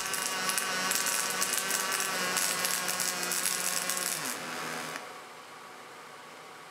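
MIG/MAG welding arc from an EWM Titan XQ pulse-capable welder laying a fillet weld on stainless steel with 1.2 mm ER308 wire: a steady crackling buzz with a faint hum under it. The arc stops about five seconds in, leaving a faint steady hiss.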